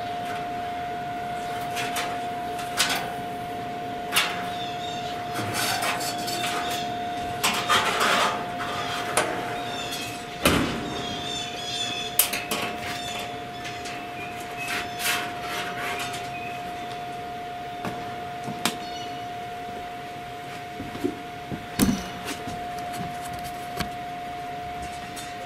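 Clicks and knocks from handling a meat probe and its wire at a Weber SmokeFire pellet grill, with one heavy thud about ten seconds in as the grill's steel lid is shut. A steady hum runs underneath.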